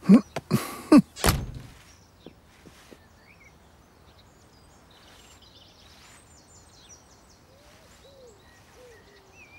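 A door pulled shut with a heavy thunk about a second in, after a few quick knocks and scuffs. Then quiet garden ambience with faint bird chirps, and a few soft low calls near the end.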